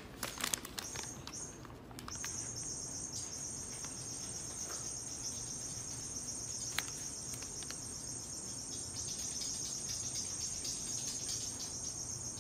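Light paper crinkling for the first couple of seconds, then a steady, shrill high-pitched trill like crickets or other insects, with a few faint ticks.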